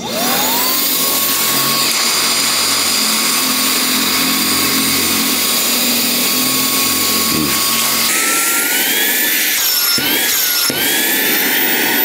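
Baseus 15,000 Pa cordless handheld car vacuum switched on: its motor whine spins up within a second and holds steady over a rush of air. About two-thirds of the way through, the whine jumps higher and wavers up and down as the nozzle is held against a gloved palm and the airflow is blocked.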